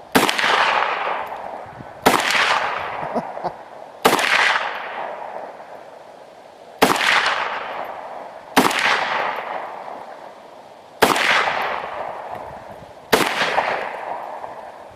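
Seven rifle shots at intervals of about two seconds, each cracking sharply and then echoing away slowly. None of them sets off the tannerite target.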